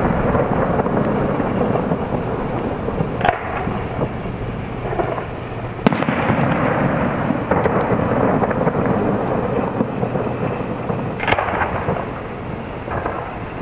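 Aerial fireworks shells bursting in quick succession: a continuous rumble of booms and crackle, with sharper reports about three, six and eleven seconds in.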